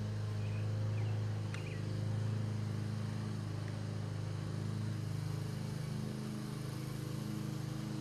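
A steady low mechanical hum with a few held tones, shifting slightly about six seconds in.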